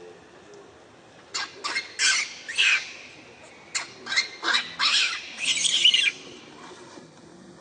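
A monkey screeching in a quick series of short, harsh calls, the last one drawn out longer.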